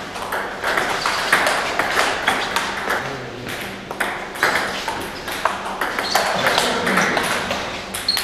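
Table tennis balls clicking off paddles and table tops in quick, irregular succession: rallies in play at more than one table.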